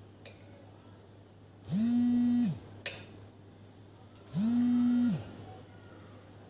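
Mobile phone vibrating with an incoming call: two steady buzzes, each just under a second long, about two and a half seconds apart, each winding up at the start and down at the end.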